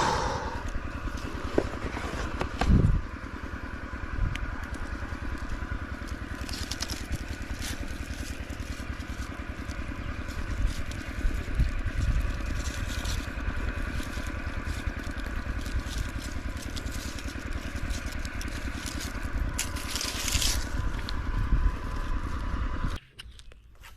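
A small engine running steadily with a fast, even pulse; it cuts off suddenly near the end.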